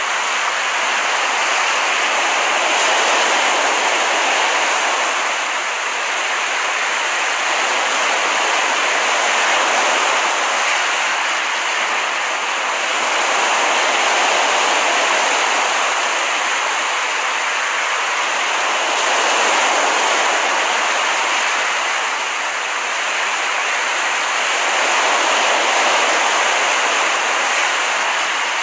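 Ocean surf: a continuous wash of breaking waves that swells and eases every several seconds.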